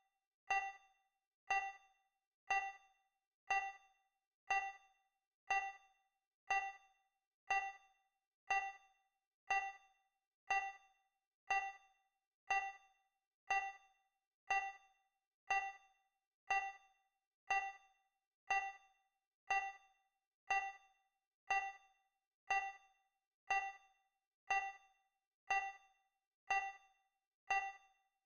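Countdown timer's digital tick sound effect, one short pitched ding every second that dies away quickly, marking each second counted down.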